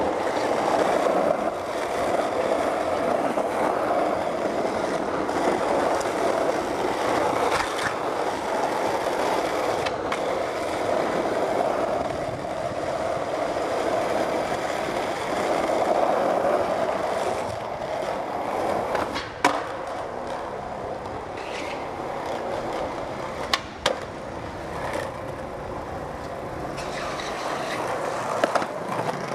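Skateboard wheels rolling over pavement with a steady rough rumble, a little quieter in the second half. Two sharp knocks stand out, about two-thirds of the way through and again some four seconds later.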